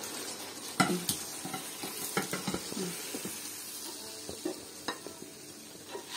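Spatula scraping and knocking against a frying pan as chicken curry is scooped out into a ceramic bowl, over a steady sizzle from the hot gravy. The loudest knock comes under a second in.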